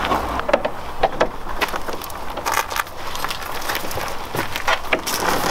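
Footsteps on a gravel path: irregular crunching steps, with light jingling from gear clipped to a belt.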